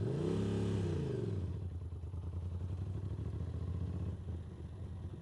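Ducati Monster's V-twin engine revving up and falling back about a second in as the motorcycle pulls away, then running steadily at low speed.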